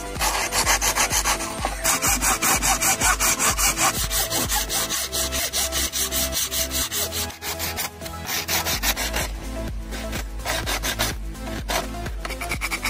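Hacksaw cutting through a dry coconut shell in quick back-and-forth strokes. After a short break, a coconut shell piece is rubbed on sandpaper in slower, sparser strokes.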